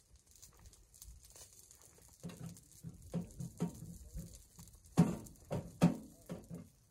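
Irregular soft knocks and taps from handling food and a utensil at a small camp grill, with two louder knocks nearly a second apart near the end.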